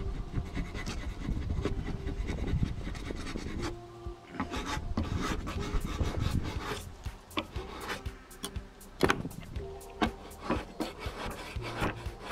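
Irregular hand-worked scraping and rubbing strokes on cockpit teak, working off softened, melted rubber-pad residue.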